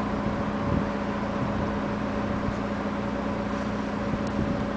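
Steady low mechanical hum over an even hiss, with a few faint ticks near the end.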